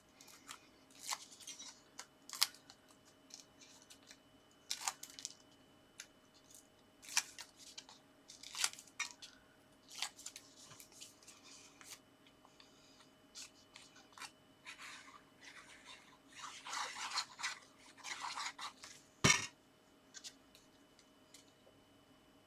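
Card and paper being handled on a craft table: short rustles, scrapes and light taps, with one sharper tap about nineteen seconds in.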